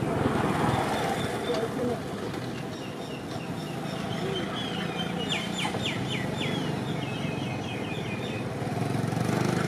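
Outdoor ambience: a steady low rumble of a motor vehicle's engine, with a bird chirping a rapid run of short high notes around the middle.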